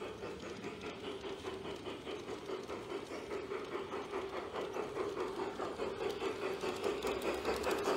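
G-scale model steam locomotive chuffing in a steady quick rhythm as it approaches along the track, growing gradually louder.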